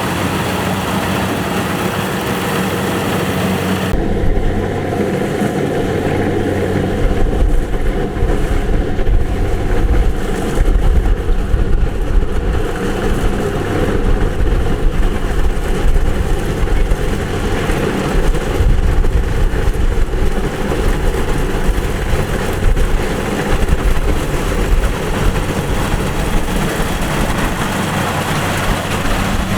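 Kubota DC-70 Plus combine harvester's diesel engine running steadily under work. About four seconds in, the sound changes abruptly: the high hiss drops away and a deeper, heavier rumble comes in.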